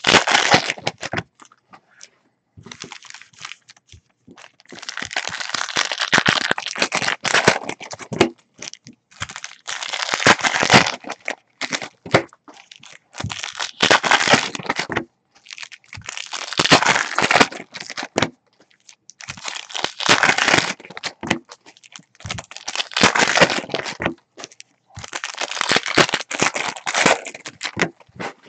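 Foil wrappers of Bowman Chrome football card packs being torn open and crinkled by hand, one pack after another. There are about eight bursts of crackling, each a second or two long, every three to four seconds.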